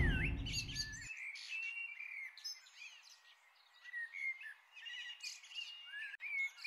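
Small birds chirping and twittering, with many short whistled notes, some sliding up or down in pitch, over a faint hiss. A louder sound dies away in the first second.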